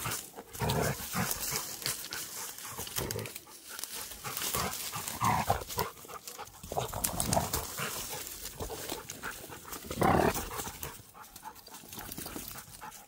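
Two young dogs, a beagle and a shepherd mix, play-fighting on dry leaf litter. Their play noises come in short irregular bursts, the loudest about ten seconds in, over the rustle of leaves under their paws.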